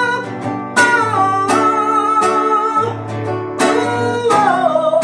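Acoustic guitar strumming chords under a held, wavering melody line, the closing bars of a forró love song.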